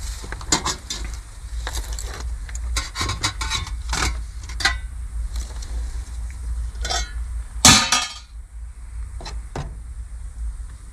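Clinks and knocks of serving utensils and food containers as a plate of chili mac is dished up and topped with cheese, the loudest clatter just before 8 s, over a steady low rumble.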